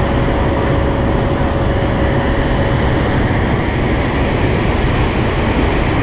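Steady engine and propeller drone heard inside the cargo hold of a turboprop military transport aircraft in flight, with a faint steady tone that fades out about three seconds in.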